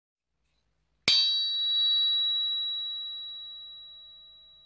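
A single sharp metallic strike about a second in, ringing on in several clear tones that fade slowly over the next few seconds: the sound effect of an outro logo sting.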